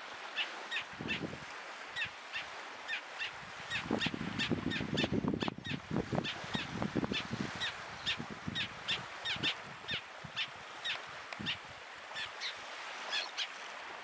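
A bird calling over and over in short, high, slightly falling notes, about two a second. A low rumble of wind on the microphone comes up between about four and six seconds in.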